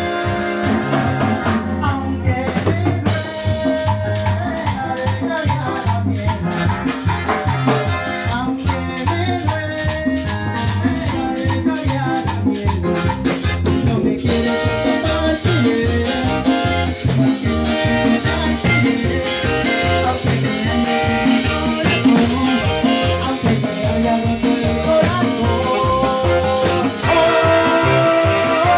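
Tropical dance orchestra playing live: a steady drum-kit beat under brass and voices, the sound getting fuller about halfway through.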